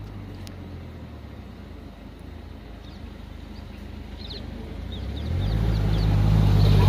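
Vehicle engine running with a low hum that grows much louder a little after five seconds in. A bird chirps in short repeated calls over it during the second half.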